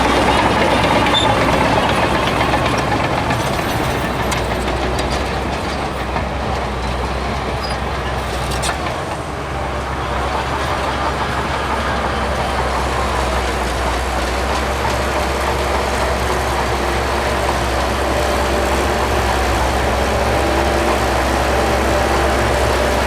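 Diesel engine of a Shantui DH17C2 bulldozer running steadily while it works, with a constant low hum under a broad mechanical noise that eases slightly about nine seconds in.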